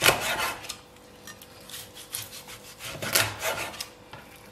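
Cleaver slicing through deep-fried, blistered pork-belly skin and meat onto a wooden cutting board. There are two louder cuts, one at the start and one about three seconds in, each a quick run of small crackles, with lighter scraping strokes between.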